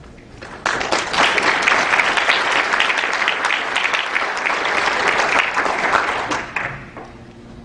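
Audience applauding: the clapping starts abruptly about half a second in, holds steady and dies away near the end.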